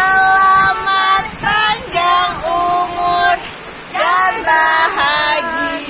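A group of women singing a birthday song together, loud, in short phrases of held notes with brief breaks between them.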